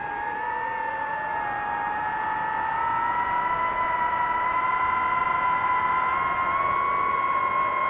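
DJI FPV drone's motors and propellers whining in fast flight, a steady pitched whine over a rushing hiss that edges slightly higher in pitch as the throttle is held.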